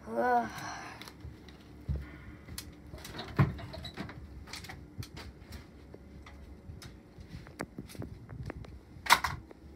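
A brief vocal sound at the start, then scattered light knocks, clicks and rustles of a person moving about a room and handling things on a desk, with one louder rustling burst near the end.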